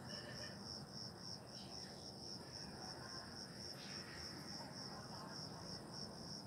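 Cricket chirping in a steady rhythm, about three high chirps a second, over a faint, even background hiss.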